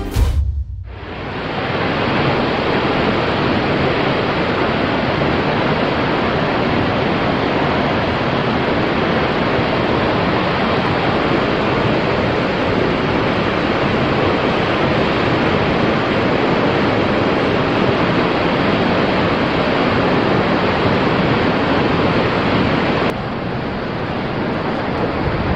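Loud, steady rush of a river and waterfall in a rocky gorge, even and unbroken. Near the end it cuts to a quieter, thinner rush of wind.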